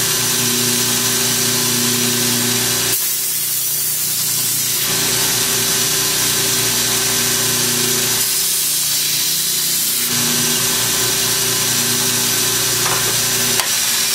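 Belt grinder running steadily while the steel edge of a kukri machete is ground against the abrasive belt, a loud grinding hiss over the motor hum. The grinding eases off twice, about three seconds in and again about eight seconds in, while the motor keeps running.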